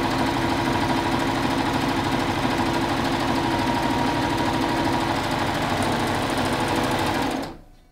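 Baby Lock serger running at speed, stitching an overlock seam and trimming the fabric edge with its cutting blade: a steady, fast, even machine hum that stops near the end.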